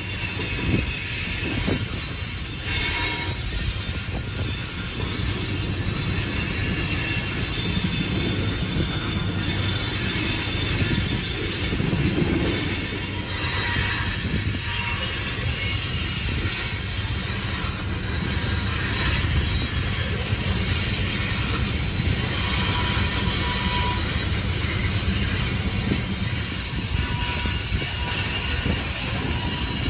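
Loaded oil tank cars of a freight train rolling past on a curve: a steady rumble of wheels on rail, with high, drawn-out squealing from the wheels rubbing the rails as the train takes the turn.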